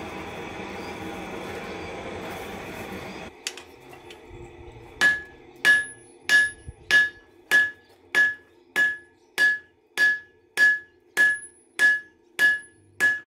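A steady rushing noise cuts off about three seconds in. Then a hand hammer forges a glowing-hot Damascus steel disc on an anvil: fourteen evenly spaced blows at about one and a half a second, each with a short bright ring.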